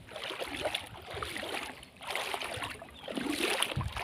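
Pond water sloshing and trickling in two slow swells, one in the first half and one near the end.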